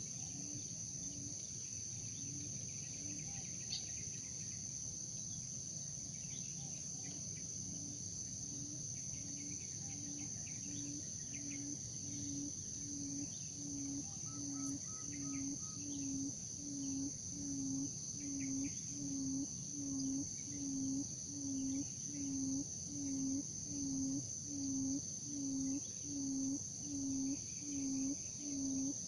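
Quail's low hooting call, repeated about one and a half times a second, sparse at first and then growing louder and steadier, over a constant high drone of insects.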